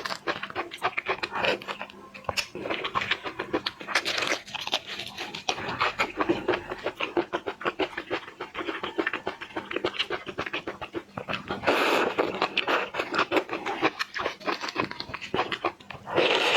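Close-miked eating of seafood: wet chewing, sucking and lip smacking, in a quick, irregular run of small clicks and smacks.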